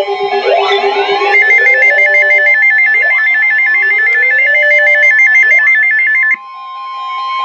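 Several electronic emergency alert tones sounding at once: a fast warbling beep, repeating rising chirps and steady tones. About six seconds in they cut off, leaving one steady alert tone.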